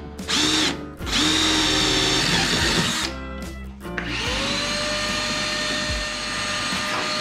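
Electric drill boring holes in aluminum transom braces for rivets, in three runs: a short burst, a run of about two seconds, and a longer run of about three and a half seconds. Each time the motor winds up in pitch, then holds a steady whine.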